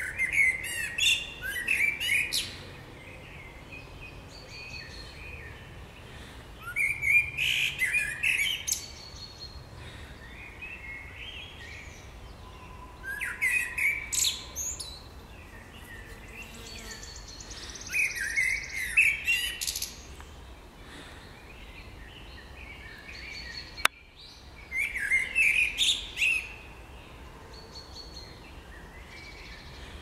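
Male Eurasian blackbird singing: five unhurried phrases a few seconds apart, each a low fluted warble that breaks into a high, squeaky twitter at its end.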